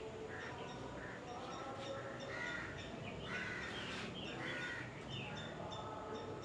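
Crows cawing again and again, with small birds chirping faintly.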